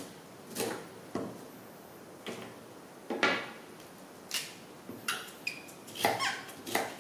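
Kitchen knife chopping green bell pepper on a thick wooden chopping block: short knocks of the blade on the wood at an uneven pace, about one every half second to second.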